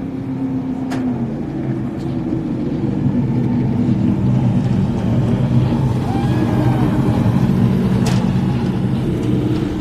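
NASCAR Cup stock car's V8 engine running as the car drives along pit road past the listener. It grows louder over the first few seconds and peaks around six to eight seconds in, then eases off slightly near the end.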